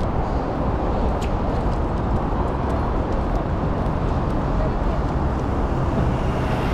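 Steady city traffic noise at a busy street crossing, a constant rumble beneath an elevated road.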